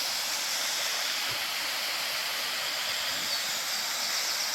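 Waterfall rushing with a steady, even hiss of falling water.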